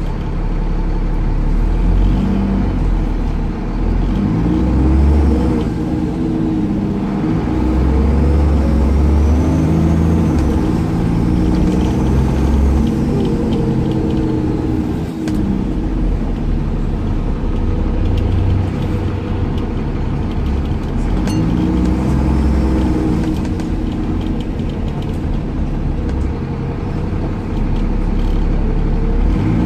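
Cummins ISCe six-cylinder diesel of a Dennis Trident 2/Enviro400 double-decker bus, heard from inside the saloon, accelerating through its gears. The engine note rises and falls several times, with a fainter high whine climbing alongside it.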